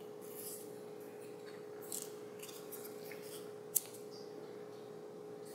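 Faint rustling and light scraping as small cut-paper pieces are handled and slid over a cardstock sheet, with one sharp tick a little past halfway. A faint steady hum sits underneath.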